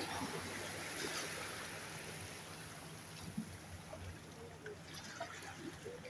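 Small sea waves washing up onto sand and draining back among rocks, a soft wash of water that eases after the first second or so.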